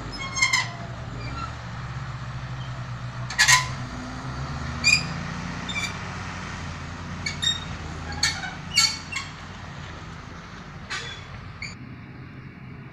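Farm tractor engine running steadily as it pulls a tipper trailer away, with about ten short, sharp squawks over it, spaced irregularly. Near the end the sound changes to a quieter, distant machine hum.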